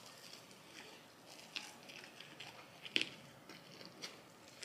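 A person biting into and chewing a hot chicken sandwich stuffed with crinkle-cut fries: irregular crunches and crackles, the loudest about three seconds in.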